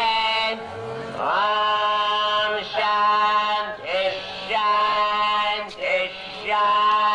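A male voice sings long, held, chant-like phrases through an outdoor concert PA, several notes in a row, some sliding up into pitch. It is heard from the crowd on a camcorder microphone.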